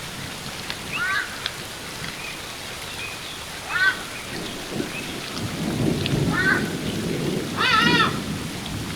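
An ibis giving short nasal calls, each rising and falling in pitch, four times a few seconds apart, the last near the end the loudest, over the steady rush of a waterfall that swells in the second half.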